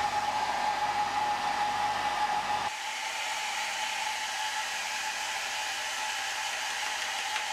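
Hand-held hair dryer blowing steadily to dry a wet bird specimen's feathers. A steady whine in its sound drops out abruptly about two and a half seconds in, leaving a plain rush of air.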